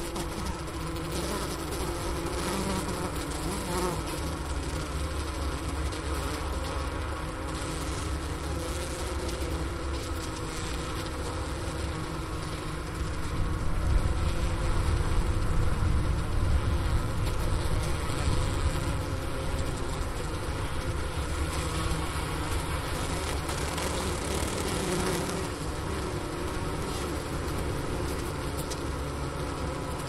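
Honeybee winter cluster humming inside a hive, recorded at the hole in the inner cover: a steady low hum with a few held tones, the sound of a living colony clustered for warmth in freezing weather. A low rumble swells in for several seconds around the middle.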